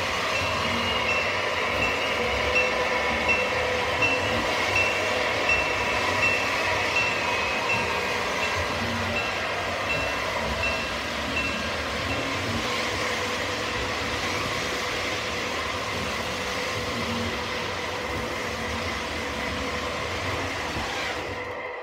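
O scale model diesel locomotive running slowly with a steady hum. A bell dings about every 0.7 s for the first twelve seconds, then stops while the hum goes on.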